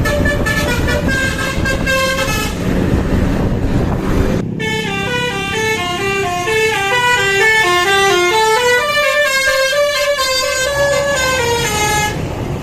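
Telolet basuri bus horn playing a tune of short stepped notes over engine and street rumble. The tune breaks off for about two seconds, then after a sudden cut a longer, clearer run of notes plays, stepping down and then back up.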